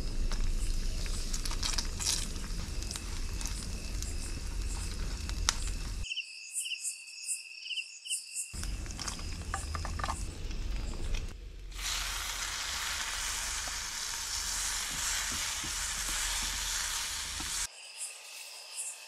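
Spices and chillies frying in hot oil in a black pot, sizzling with scattered crackles as a spoon stirs them. The sizzle breaks off for about two seconds where only crickets chirp, comes back stronger and steadier in the second half, then stops suddenly near the end, leaving crickets.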